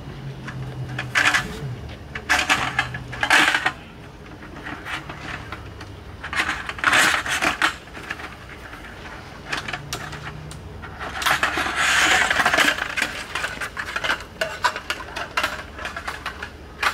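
Aluminium slats of a roll-up camping table top clinking and rattling as the top is taken off its folding frame and rolled up. The clatter comes in several bursts with short pauses between them, the longest and loudest about two thirds of the way through.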